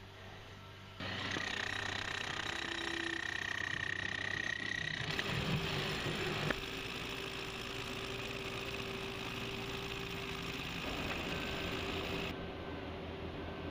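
Steady machine running noise with a constant whine. Its pitch and level change abruptly a few times.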